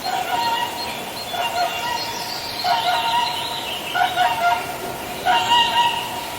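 A swan calling: a series of about five short calls, each with several pitched layers, spaced a second or so apart.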